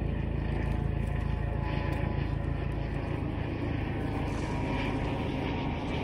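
A steady low rumble that stays even throughout, like engine or wind noise.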